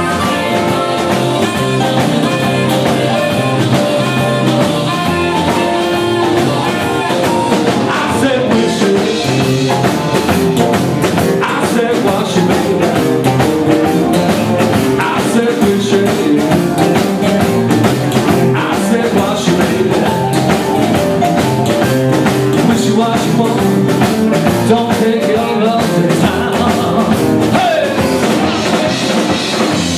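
Live band playing rock and roll: electric guitar over a drum kit.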